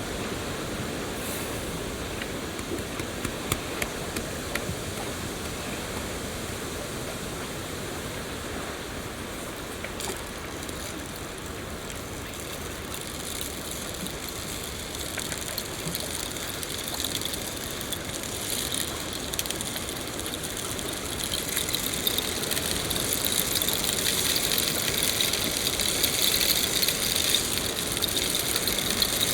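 Steady rain with scattered individual drop ticks, growing louder and brighter from about two-thirds of the way through.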